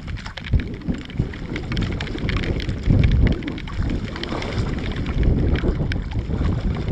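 Gusty wind buffeting the camera microphone, loudest about three seconds in, with many small sharp ticks of raindrops striking the camera.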